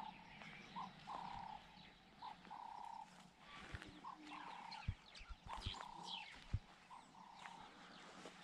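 Faint outdoor animal sounds: a call repeated about every second and a half, each a short note followed by a longer held note, with scattered quick bird chirps and a few soft thumps.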